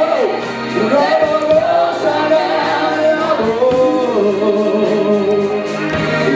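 Gospel worship song sung by several voices, with held, sliding notes over a steady beat.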